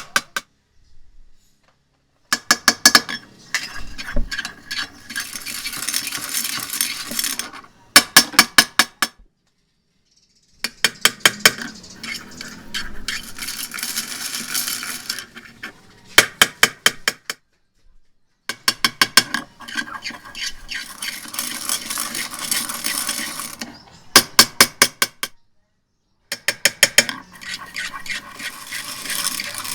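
Utensil and bowl sounds while making slime: fast runs of sharp clinks alternating with a rough, wet stirring noise. They come in short cut-together segments that break off suddenly into silence several times.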